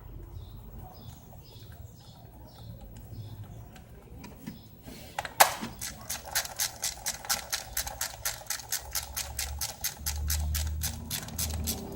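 A ratchet wrench working a bolt: one sharp click, then a fast, steady run of ratchet clicks, about five a second, from about halfway through.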